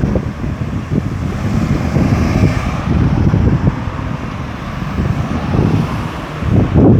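Road traffic passing through a busy roundabout, with wind buffeting the microphone in irregular low gusts.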